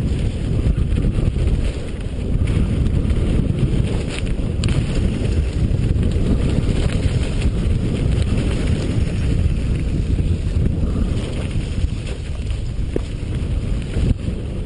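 Wind rushing over the microphone of a mountain biker's camera during a fast descent of a dirt trail, with a steady low rumble from the tyres and a few sharp clacks as the bike goes over bumps.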